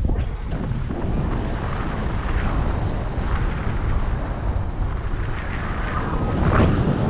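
Wind rushing over the microphone of a paraglider's camera in flight: a steady low rumble with irregular gusty swells, the strongest about six and a half seconds in.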